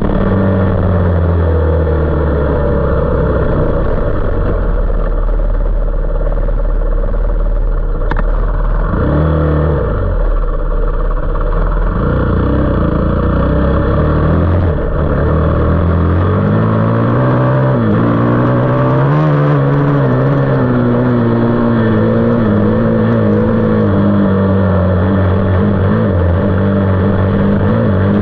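450cc off-road engine running under load while being ridden, its pitch rising and falling with throttle and gear changes. The revs drop low about ten seconds in, then climb again a few seconds later and hold at a higher, steady pitch.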